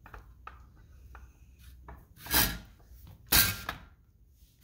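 Sopito all-metal lever-action french fry cutter slicing a potato: a few light metal clicks as the potato is loaded, then two loud rasping strokes about a second apart as the plunger forces it through the steel blade grate.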